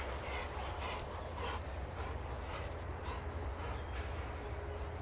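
Rottweiler moving about in grass: faint soft rustles and dog sounds over a steady low rumble on the microphone.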